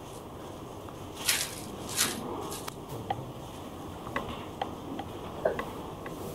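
Face-mask packets being torn open and handled, with two short crinkling rustles about a second and two seconds in, then a scatter of faint clicks and taps.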